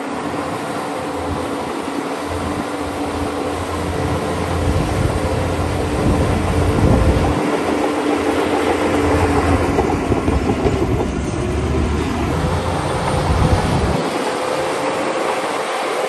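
Shantui crawler bulldozer's diesel engine running under load, with the metallic clatter of its tracks. The low rumble swells twice, each time for several seconds.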